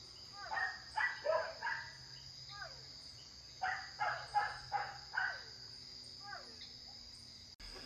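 Frogs calling in groups of short, bark-like calls that slide down in pitch, the chorus heard in north-east Brazil as 'foi, não foi'. A steady high insect trill runs underneath.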